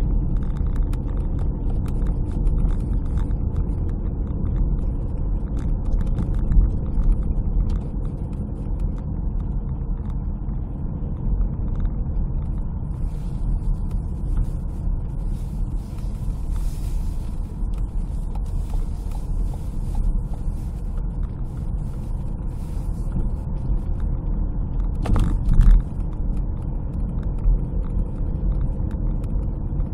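Car driving on packed-snow roads, heard from inside the cabin: a steady low rumble of engine and tyres, with a brief thump about 25 seconds in.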